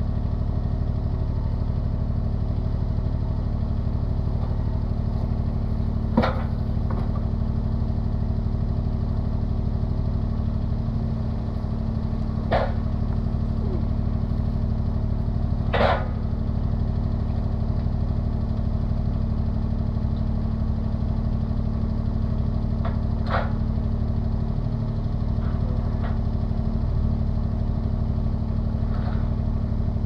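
Compact tractor engine idling steadily. A few sharp metal clanks sound over it as the steel sawmill track sections are shifted on their railroad-tie base.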